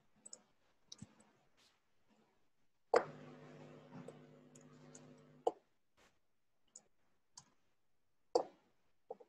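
Scattered clicks of a computer mouse and keyboard, about nine in all, as text is selected, copied and pasted. A low steady hum sounds for about two and a half seconds in the middle, starting and stopping with a click.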